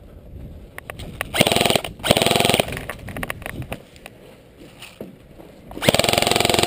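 Electric airsoft gun firing three full-auto bursts: a fast, buzzing rattle of the gearbox cycling. Two short bursts come close together about a second and a half in, and a longer one near the end.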